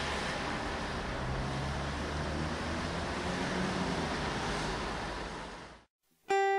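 Steady outdoor rushing noise of wind and distant city traffic, which fades out and cuts to silence near the end. Just before the end, a clean-toned guitar starts picking single notes.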